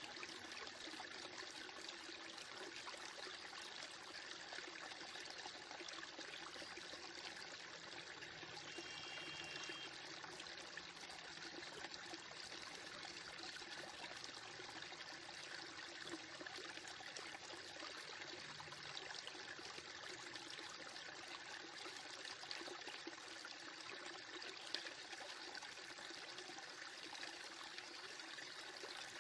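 Faint, steady hiss with no distinct events, and a single short click near the end.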